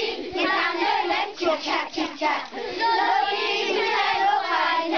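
A group of children's voices singing together, with several high voices overlapping.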